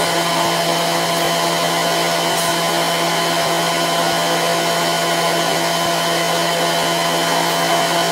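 Steady machine hum, like an electric motor or blower running continuously: a low drone with a faintly pulsing higher tone and a thin high whine over a noisy rush.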